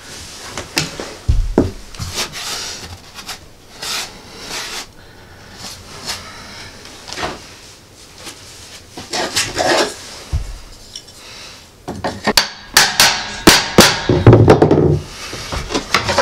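Click-lock laminate flooring planks being laid: irregular wooden knocks and taps with planks scraping and sliding between them, and a run of louder, closer-spaced knocks near the end.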